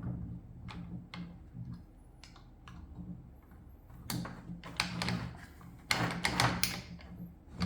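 Handling noises: scattered light clicks and knocks, with two louder scraping bursts about four and six seconds in. No power tool is running.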